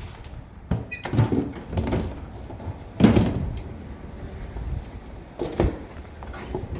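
Handling noise as a chair and a bucket are set down and shifted: a series of knocks and clatters, the loudest about three seconds in.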